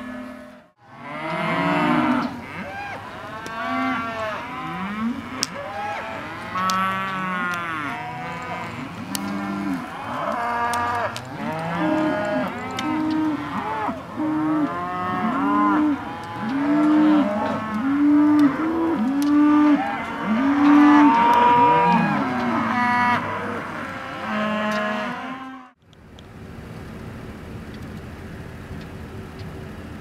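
A herd of beef cattle bawling and mooing, many long arched calls overlapping one another almost without pause. The calls cut off suddenly about 26 seconds in, leaving a quieter steady noise.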